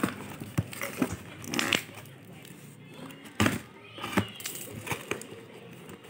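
Pink-handled scissors cutting through the packing tape and plastic wrap of a cardboard box, with the cardboard and plastic crackling and scraping as they are handled. There is an uneven run of sharp snips and tears, the loudest about three and a half seconds in.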